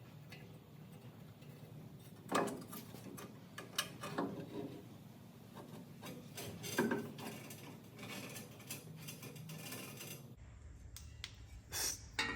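Metal parts and hand tools being handled: scattered clanks and scrapes, with a few sharper ringing knocks, over a low steady hum.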